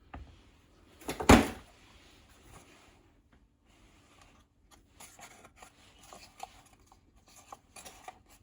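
Handling of a new plastic charging socket flap cover: one sharp knock about a second in, then light plastic clicks and rustling.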